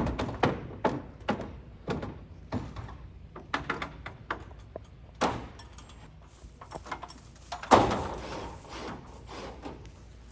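Hammer blows tacking down barn roofing: irregular sharp knocks, about one or two a second, with one heavier bang about three-quarters of the way through.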